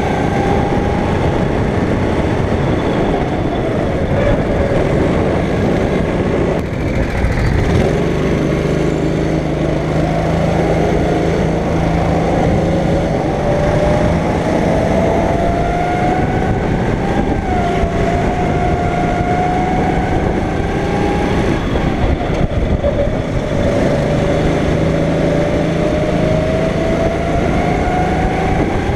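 Go-kart engine under full throttle on track, its pitch climbing steadily along the straights. It drops sharply three times as the kart lifts off and brakes for corners, then climbs again.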